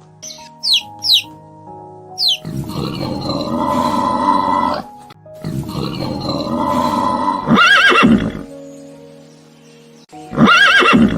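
Horse neighing: long, loud whinnies that break into a wavering trill, one ending about eight seconds in and another near the end, over background music with steady sustained notes.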